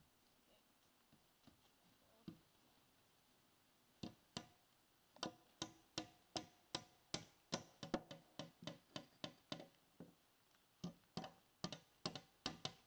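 Hammers driving 4-inch spiral nails into rough-cut hemlock deck boards. A few single taps come first, then from about four seconds in a run of sharp strikes at about three a second.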